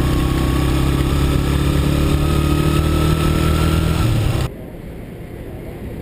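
Motorbike engine running at a steady cruise, its pitch rising slightly, with a steady hiss over it, heard from the moving bike. About four and a half seconds in it cuts off abruptly to a quieter, steady hiss.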